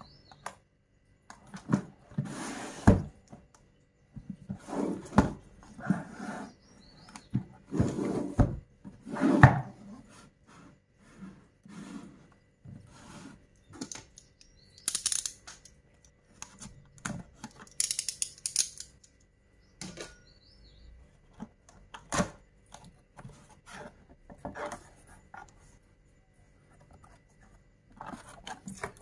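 A cardboard box handled with gloved hands: irregular rubbing, scraping and sharp knocks as it is turned over and opened, loudest in the first ten seconds, with two brief hissy scrapes of cardboard sliding about halfway through.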